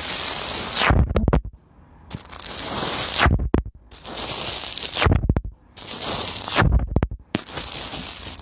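Slime being squished and worked by hand, giving crackly, scratchy squelching in a series of bursts about a second long that start and stop abruptly.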